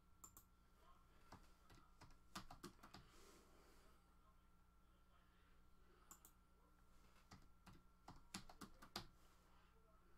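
Near silence with faint, scattered computer keyboard clicks, in small clusters a couple of seconds in and again in the last few seconds, over a low steady hum.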